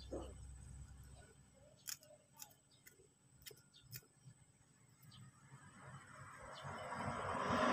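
A few faint, sharp clicks spaced irregularly, from hands handling the dark shell-like top dressing and stems at the base of a potted palm. Near the end a steady rushing noise rises and grows louder.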